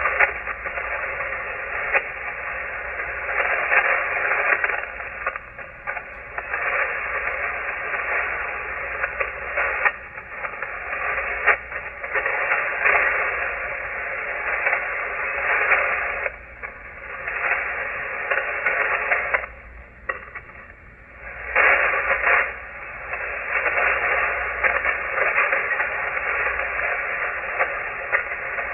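Shortwave receiver tuned to the 40-metre amateur band in single-sideband mode, putting out steady static hiss with sharp crackles now and then. The noise dips briefly about two-thirds of the way through.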